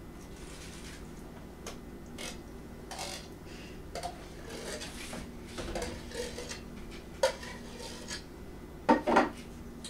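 Spoons and utensils clinking and scraping against bowls and plates during food preparation, in scattered short clicks; the loudest is a sharp clink about seven seconds in, followed by a double clatter near the end.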